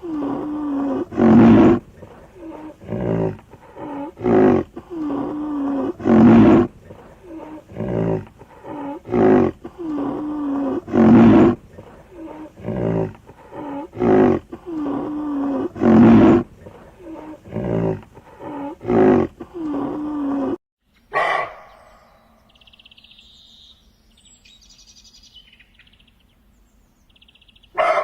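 Big cat roaring in a long series of calls, about one every second or so. The calls stop abruptly about two-thirds of the way through. A single short loud call follows, then faint high chirps.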